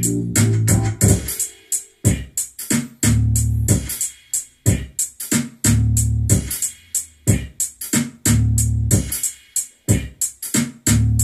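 Old-school electronic beat played on a Yamaha DJX keyboard: a drum-machine pattern with sharp hits at about four a second over a deep bass line in repeated phrases.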